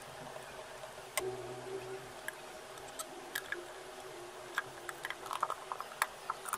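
Light clicks and taps of a hand blender's plastic housing being handled and fitted together, with a louder knock about a second in. Near the end comes a quick run of small clinks as screws are picked up from the table. A faint steady hum lies underneath.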